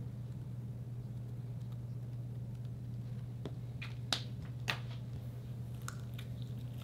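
A few sharp clicks over a steady low hum, the loudest two about four and four and a half seconds in. Near the end come softer sticky clicks as fingers grab and stretch the edge of a soft white slime.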